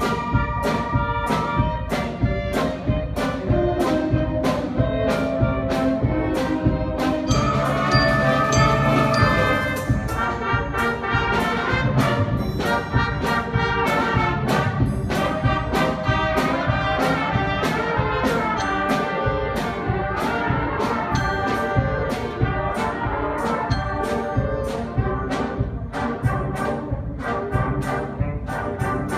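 Eighth-grade school band playing a piece, with saxophones and brass over a steady drum beat.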